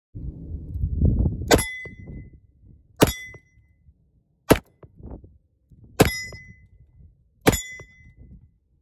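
Five shots from a 4-inch Ruger .357 Magnum revolver firing 38 Super Auto rounds, about a second and a half apart, each with the brief ring of a hanging steel plate target being hit. A low rumble comes before the first shot.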